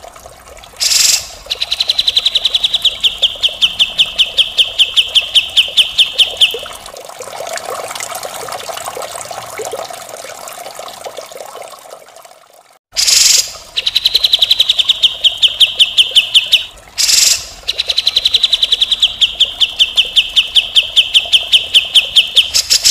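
Cucak jenggot (grey-cheeked bulbul) singing its rough 'mbeset' song: three harsh, rapid rattling trills a few seconds each, with short rasping notes between them. A softer, lower noisy stretch and a brief break come before the middle trill.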